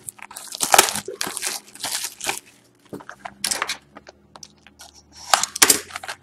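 Plastic shrink-wrap being slit and torn off a cardboard box of trading cards, crinkling and tearing in irregular bursts with short pauses between them.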